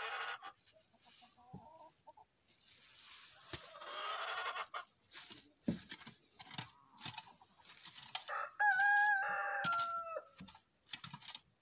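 Hens clucking, with one long drawn-out call about eight and a half seconds in, held in two parts, the second a little lower and dropping off at its end. Short scrapes and knocks of a hand tool breaking up the soil run alongside.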